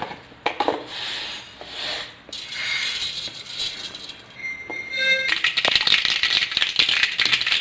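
Mustard seeds spluttering and popping in hot oil in a kadai: a soft hiss at first, then a dense, fast crackle that starts about five seconds in and keeps going.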